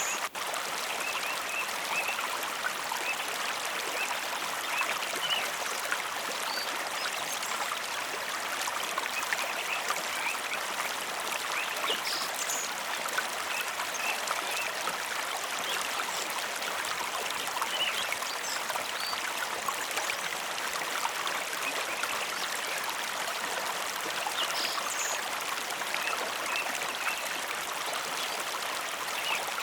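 A mountain river flowing and babbling steadily, its rushing water constant throughout.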